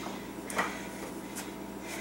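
A short knock about half a second in and a fainter click later, from an ab roller wheel being handled as she kneels onto an exercise mat, over a steady low room hum.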